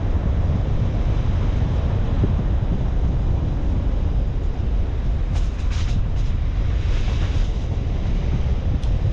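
Car driving: a steady low rumble of tyre and wind noise. A few short hisses come about five and a half to six seconds in, then a brief rush of hiss around seven seconds.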